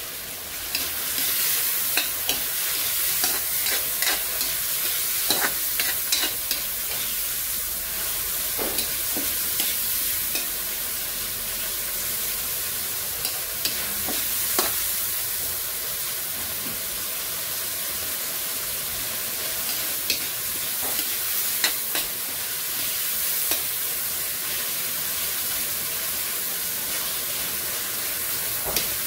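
Freshly added chopped tomatoes and onions sizzling in butter and oil in a metal wok, with a metal spoon scraping and clinking against the wok as they are stirred. The clinks come irregularly over a steady sizzle.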